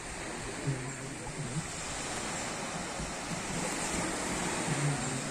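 Sea surf washing onto a beach, a steady rushing noise that swells a little near the end.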